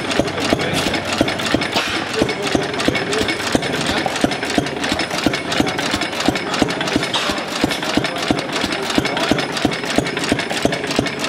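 Vintage Lauson stationary flywheel engine running steadily, with an even, rapid ticking of sharp clicks, several a second, from its running gear.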